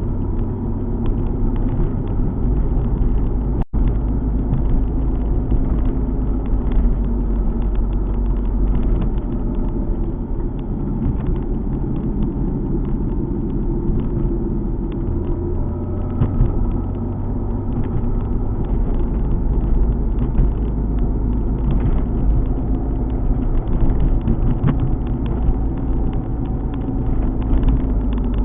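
Alfa Romeo 147 GTA's 3.2-litre V6 running under way, with steady low road and tyre rumble. The sound cuts out for an instant about four seconds in.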